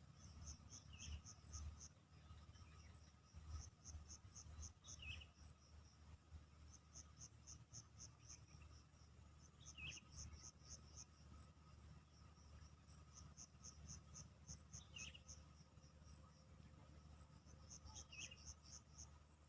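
Faint insects chirping in short trains of rapid high pulses that come every few seconds, with a brief falling call repeating about every four to five seconds and a low rumble underneath.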